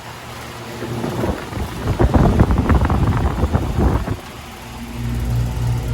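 Vintage 1985 Comfortmaker heat pump condensing unit running in cooling mode: a steady compressor hum with the rush of the condenser fan. Gusts of air buffet the microphone for a few seconds in the middle, and the hum comes through stronger near the end.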